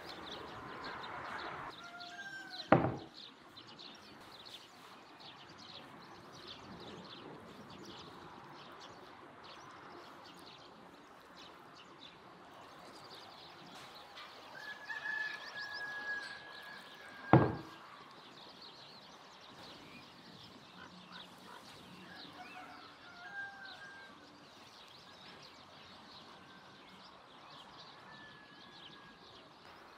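Outdoor farmyard ambience with birds chirping and calling on and off, broken twice by a sharp knock, once about three seconds in and again past the middle.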